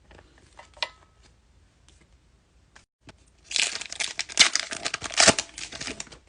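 A foil wrapper on a 2020 Topps Fire baseball card pack is torn open and crinkled. A few light handling clicks come first, then about two and a half seconds of loud crinkling from about halfway in.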